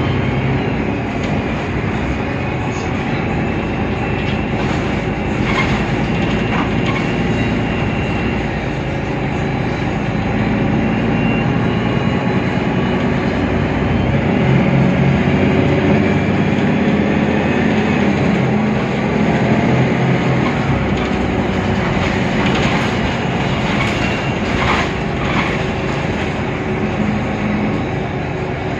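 Mercedes-Benz Citaro O530 Ü city bus under way, its OM 906 hLA straight-six diesel and Voith DIWA automatic gearbox running steadily over a continuous rumble, the engine note shifting around the middle, with a few short knocks and rattles.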